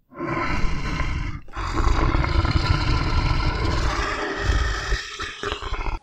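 Lion roaring: a short roar, then after a brief break about a second and a half in, a longer, rough roar.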